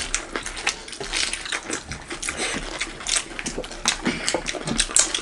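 Close-miked eating sounds: irregular wet chewing and lip smacks, with fingers working rice and curry on metal plates.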